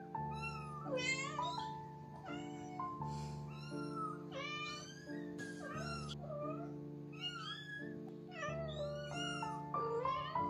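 Kittens meowing over and over in short calls, about two a second, over background music.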